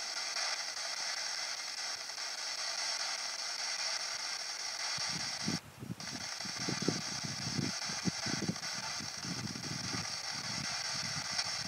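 P-SB7 spirit box sweeping through radio stations, giving a steady hiss of radio static. From about five seconds in, just after a brief dropout, short choppy fragments of broadcast sound break through the hiss.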